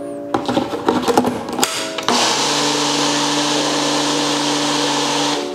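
Countertop blender running with chunks of garlic, onion and pear in water: rough and uneven for the first couple of seconds, then a steady high-speed whir from about two seconds in, cutting off shortly before the end.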